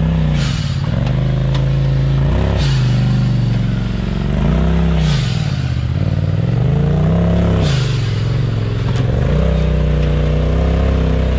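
Side-by-side UTV engine being blipped up and down on the throttle while rock crawling, its pitch rising and falling every two to three seconds, with a short noisy burst about every two and a half seconds.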